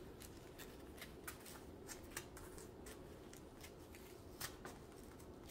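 Faint rustling and light irregular clicks of small plastic zip bags of acrylic diamond-painting drills being picked up and set down one by one, with a few slightly louder clicks.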